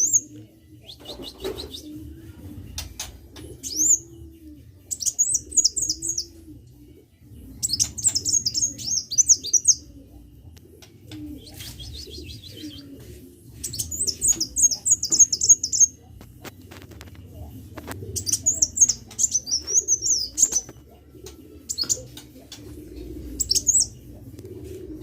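Sunbird singing: bursts of rapid, high-pitched twittering, each a second or two long, repeated every few seconds. A dove coos low and steadily underneath.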